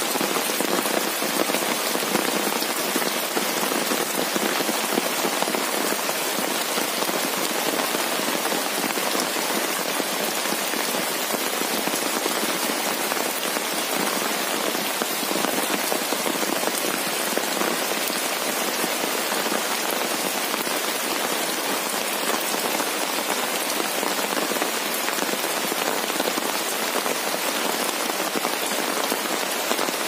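Heavy rain falling steadily on banana leaves, grass and wet muddy ground, as an even, dense hiss.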